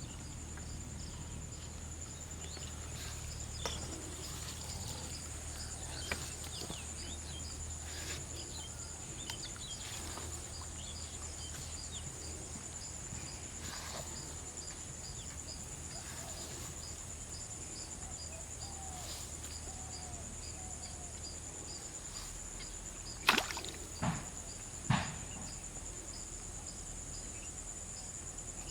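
Insects, crickets by their sound, trilling steadily in a high, evenly pulsing chorus, with a few faint clicks. Near the end come three sharp knocks about a second apart.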